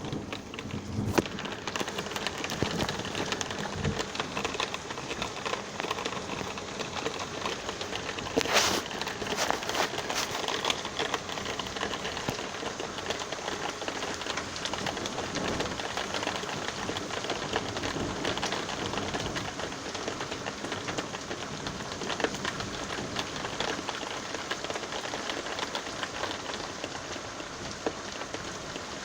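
Steady rain falling, dense with the ticks of individual drops hitting close by, and one louder, sharp hit about a third of the way through.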